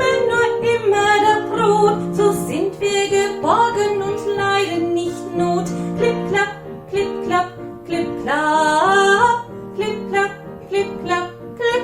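Children's folk song: a female voice singing over plucked acoustic guitar accompaniment.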